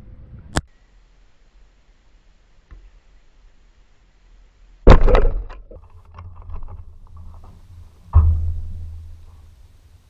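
A faint distant kick, then about two seconds later a loud thud as a football strikes the goal right by the goal-mounted camera, ringing away over a second; a second heavy thud follows about three seconds later. A sharp click comes right at the start.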